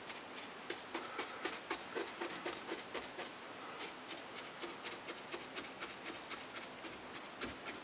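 Stiff-bristle round paintbrush punching and dabbing paint onto a fascia board: a run of soft, quick taps and scrubs, about three or four a second.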